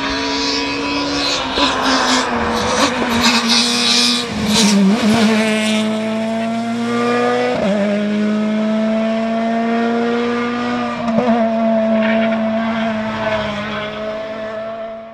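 Ford Fiesta S2000 rally car's engine at full throttle, its pitch climbing through the gears and dropping back at each of about three upshifts, with crackling in the first few seconds.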